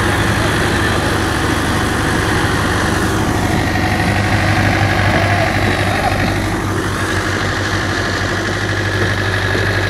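Engine of a piece of heavy machinery idling steadily, a low hum with a fast even throb.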